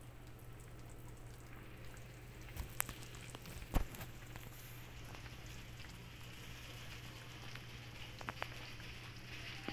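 Pork steak simmering in its sauce in a wok: a steady bubbling patter, with a couple of sharp pops about three and four seconds in.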